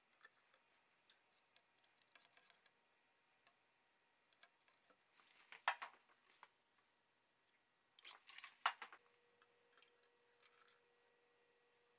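Near silence broken by a few faint clicks and taps of steel knife blades knocking against a plastic jar and each other as they are set into the etching solution, the loudest about five and a half seconds in and a short cluster around eight to nine seconds in.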